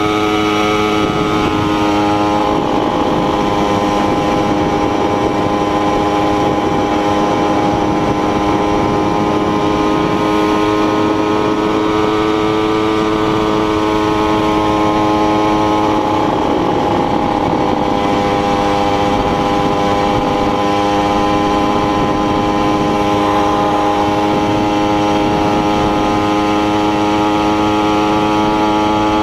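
Small motorcycle engine running under way, close up from the rider's seat, with a steady buzzing note. The pitch steps down about two seconds in and wavers again around the middle before settling.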